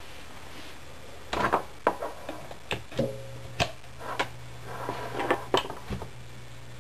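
A scattering of sharp clicks and knocks. About three seconds in, a steady low hum starts and holds: the 12-volt landscape lighting transformer humming as it drives current through the pencil's graphite core, which begins to smoke.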